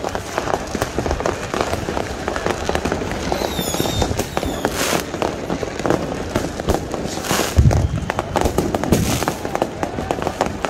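Fireworks and firecrackers going off in a dense, continuous crackle of bangs and pops. There is a brief whistle about three and a half seconds in, and a louder, deeper bang a little past the middle.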